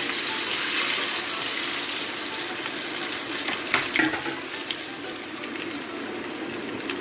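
Raw elephant-foot yam and taro strips tipped into hot oil in a deep kadai, setting off a loud hiss of frying that slowly settles into steady bubbling and crackle as the chips begin to fry for upperi. A couple of light clicks come about four seconds in.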